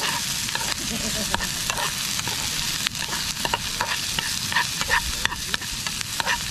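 Chopped onions sizzling in oil in a small nonstick frying pan on a camping gas stove. A metal spoon stirs them, scraping and clicking against the pan many times over the steady sizzle.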